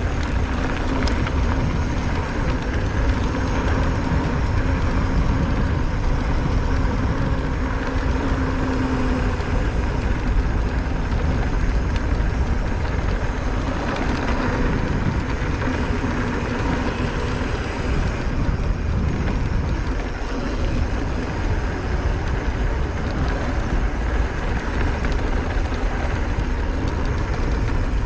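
Wind noise on the camera microphone and mountain-bike tyres rolling over a dirt fire road, with a steady hum from the Giant Reign E+ electric mountain bike's mid-drive motor.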